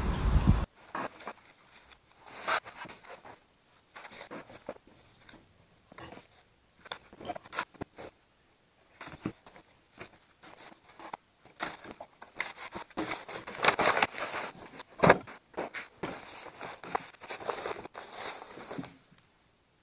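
Paper and cardboard rustling and sliding as gloved hands sort through a stack of old sheets and folders in a wooden drawer, with small knocks against the drawer. The handling is busiest in the last third and stops about a second before the end.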